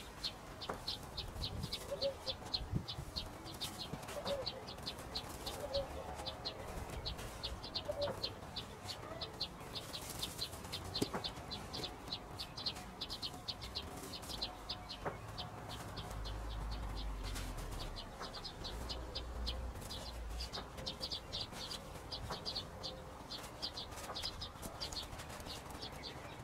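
Birds calling outdoors: a fast, steady high chirping about four times a second, with a lower call repeating about every two seconds during the first third.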